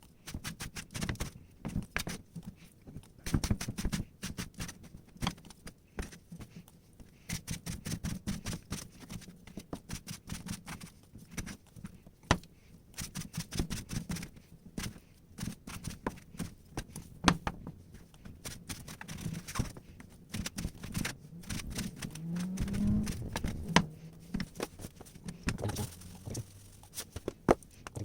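Knife chopping on a cutting board: many quick, irregular taps, with some scraping.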